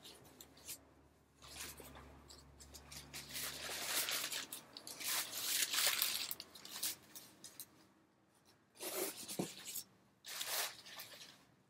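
Crumpled packing paper rustling and crinkling as it is pulled out of a cardboard shipping box, loudest in the middle, with two shorter rustles near the end.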